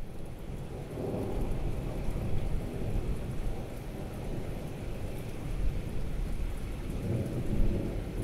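Rolling thunder rumbling low over steady rain. The rumble swells about a second in and again near the end.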